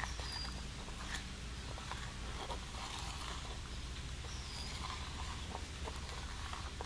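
Metal spoon stirring thick cornstarch-and-water goop in a plastic bowl: soft, irregular scrapes and wet clicks, over a steady low hum of street traffic.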